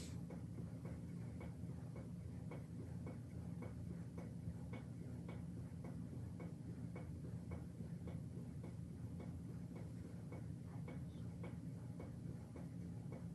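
Faint, even ticking, about three ticks a second, over a low steady hum.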